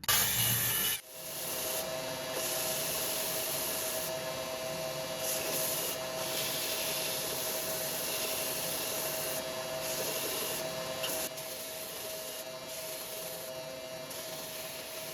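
Electric sander working oak: a steady scratchy sanding noise over an even motor hum. A louder, different noise fills the first second.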